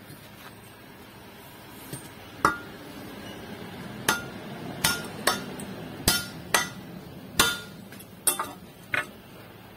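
Hammer striking a steel hoe while its wooden handle is being fitted: about ten sharp blows at an uneven pace, each with a short metallic ring.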